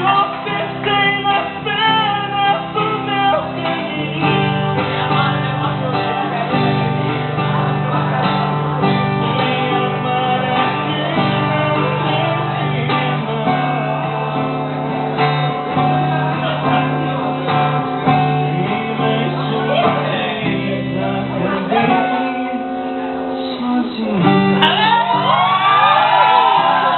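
Music with plucked guitar and singing over a steady low bass line. About two and a half seconds before the end, shouts and whoops from several people break in over the music.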